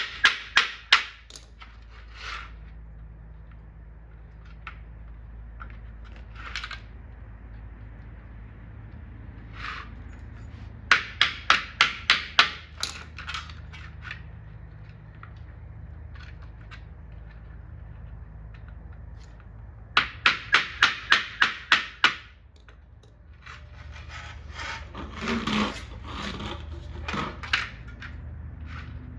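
Light hammer taps on snap-on light-socket clips, driving them down so they pierce the wire, in quick runs of six or seven strikes, about three a second, plus a few single taps. Near the end, rubbing and handling noise as the parts are moved.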